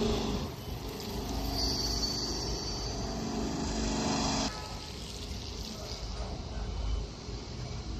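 Outdoor background noise with a steady low rumble. A steady hum and a high whine sound over it and cut off abruptly about four and a half seconds in.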